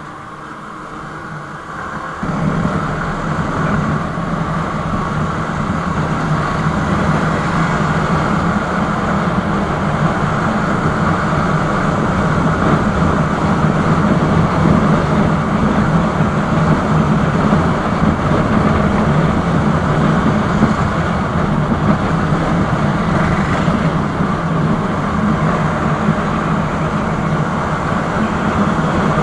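Sport motorcycle riding at a steady speed, heard from the on-board camera: a steady engine hum under wind rushing over the microphone. It gets louder about two seconds in, then holds steady.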